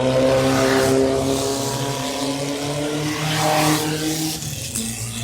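Off-road race car engine running at high revs as the car goes by, its pitch falling slowly, with a second push of revs about three and a half seconds in.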